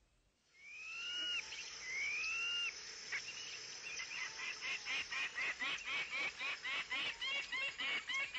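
Jungle birds calling: two long whistles, each rising then falling, followed from about four seconds in by a rapid run of short chirping calls, about three a second.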